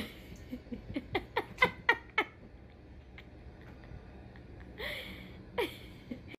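A quick run of about six short, falling vocal sounds a second or so in, then two more near the end, with a soft thump at the very start.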